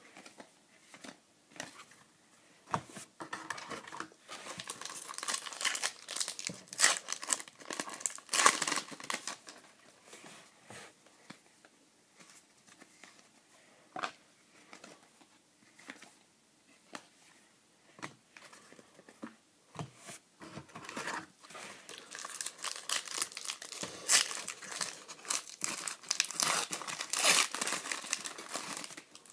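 Foil trading-card pack wrappers crinkling and tearing open, in two long bursts, one about 4–9 seconds in and one over the last several seconds. Between them are quieter stretches of light ticks and slides as cards are flipped through by hand.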